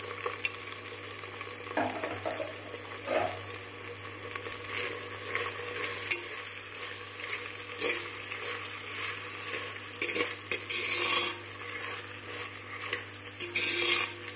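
Diced vegetables frying and sizzling in oil in a terracotta clay pot while a steel spoon stirs and scrapes through them. The scraping comes in uneven strokes, louder around the middle and again near the end.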